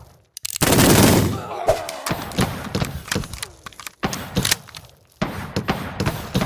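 Gunfight: a loud gunshot with a ringing tail about half a second in, then a run of further shots and sharp thuds of bullets striking around the room, dying away near the end.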